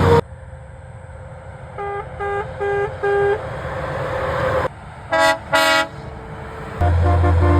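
Truck horns honking in quick succession, with abrupt cuts between clips. First come four short, evenly spaced toots on one pitch. Then two short, bright blasts. Then a long multi-tone horn begins about seven seconds in, over a low engine rumble.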